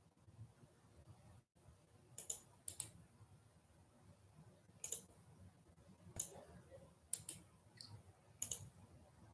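Computer mouse clicking: sharp single clicks and quick double clicks spaced a second or two apart, about eight in all, starting about two seconds in.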